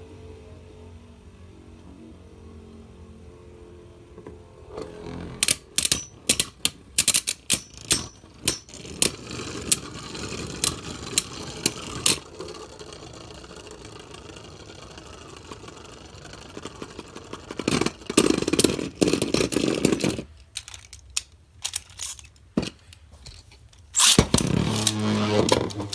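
Dynamite Belial and Belial Beyblade Burst tops spinning in a clear plastic stadium: a faint whir slowly falling in pitch, then many sharp plastic clicks as they clash, in two spells. The clashing stops about 20 seconds in, and about 24 seconds in a launcher fires and a new pair of tops lands whirring loudly.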